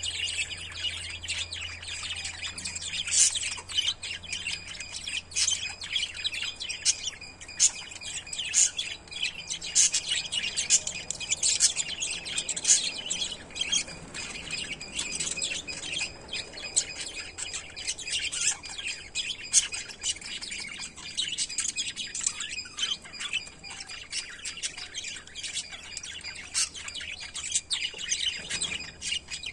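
Small pet parrots chirping and chattering without pause, a dense stream of rapid, overlapping high-pitched chirps with some sharper squawks.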